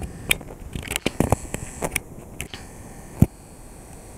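Handling noise from a hand-held camera: a scatter of short clicks and small knocks, with one louder knock about three seconds in.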